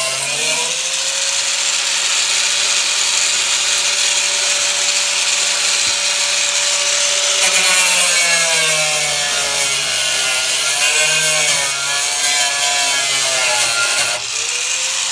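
Whiz wheel (abrasive cut-off tool) cutting through a sheet-metal repair patch on a car's rear quarter panel, a loud grinding whine. It holds a steady pitch at first, then dips and wavers as the wheel bites into the metal, with a short drop near the end.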